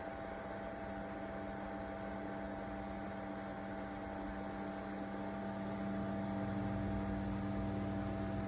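Small battery-powered personal air cooler fan running, a steady electrical hum with a few constant tones that grows slightly louder past the middle.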